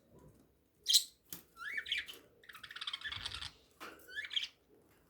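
Birds calling: two rising whistled calls, about a second and a half and about four seconds in, around a burst of harsh, chattering squawks, with a few sharp clicks near the start.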